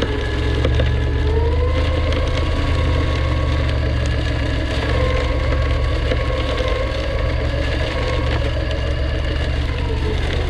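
Truck engine running with a steady low drone, its pitch rising slightly a little over a second in and again around five seconds in.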